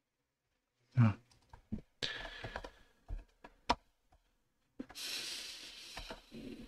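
Sparse keystrokes and clicks on a computer keyboard during code editing, with breathing close to the microphone.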